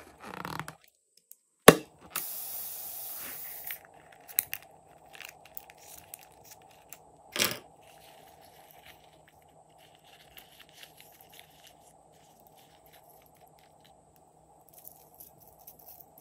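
Balloon and slime handling: a single sharp snap, then a steady hiss lasting about a second and a half, followed by faint crinkling and one more knock.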